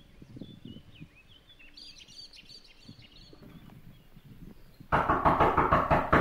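Birds chirping and footsteps on grass, then about five seconds in a loud, rapid run of knocks on a door lasting just over a second.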